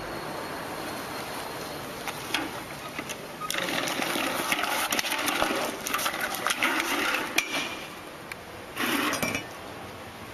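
Clattering and scraping with sharp knocks as a Segway and its rider fall onto asphalt, starting about three and a half seconds in and lasting a few seconds, over a steady hiss.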